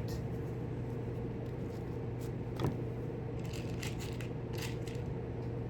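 A few light clicks and taps of small hardware being handled and pressed into a model overpass, the clearest about halfway through, over a steady low electrical hum.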